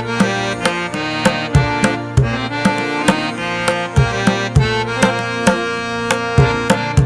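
Music with a steady beat: sharp drum hits about twice a second over sustained pitched notes.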